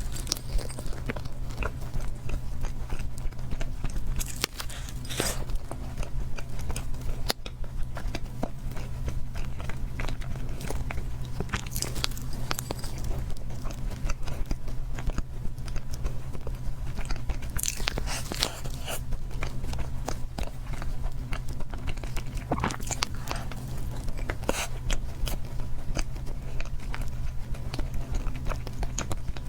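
Close-miked chewing and wet mouth sounds of someone eating cake, many small smacks and clicks throughout, over a steady low hum.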